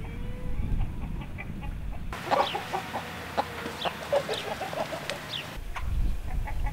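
Domestic hens clucking in short, repeated calls over a low rumble. A little over two seconds in, the background changes abruptly to a steady hiss with a quicker run of clucks, and it switches back to the rumble shortly before the end.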